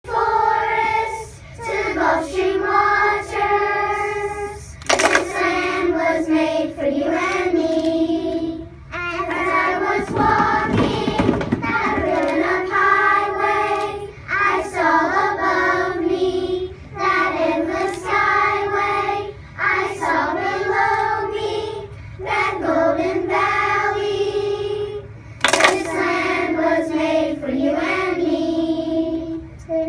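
A group of third-grade children singing together in phrases with short breaks between them. Two sharp hits cut through, about five seconds in and near the end.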